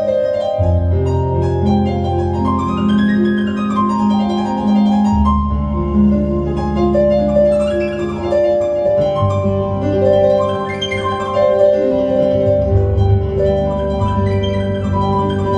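Improvised piano music: runs of perfect fourths and fifths sweep up and back down the keyboard twice over sustained low chords.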